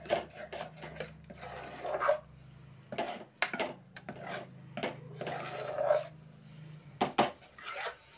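Steel spoon scraping and knocking against the sides of an aluminium pressure-cooker pot while stirring a thick, thickening rice-flour dough, in irregular strokes with a few sharper knocks.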